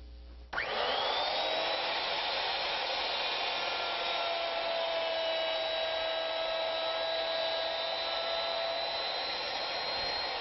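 Plunge router on a Legacy ornamental mill switching on about half a second in, its whine rising as it spins up, then running steadily while cutting the ends of a rail.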